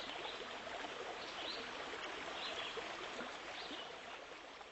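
Steady rush of running water with a few faint short bird chirps, fading out near the end.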